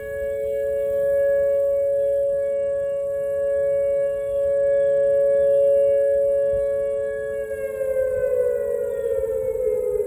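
Outdoor tornado warning siren sounding a steady two-tone chord during a test, swelling and fading slightly. About seven seconds in it begins to wind down, its pitch falling.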